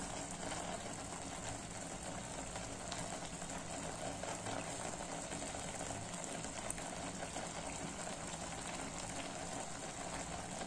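Carrot halwa mixture of grated carrot, milk and sugar bubbling steadily in a kadai, still wet from the water the sugar has drawn out and has to be cooked off.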